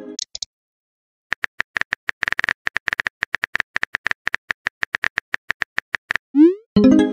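Rapid keyboard tap clicks from a texting app's sound effects as a message is typed, several taps a second, for about five seconds. Near the end comes a quick rising swoosh as the message is sent, then a short pitched chime.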